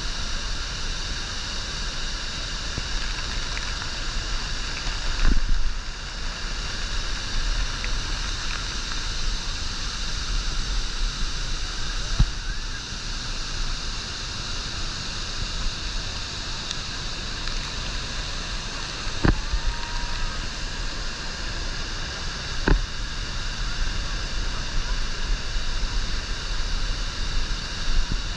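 Niagara Falls' water falling, a steady, even rushing roar. A few sharp knocks stand out over it four times.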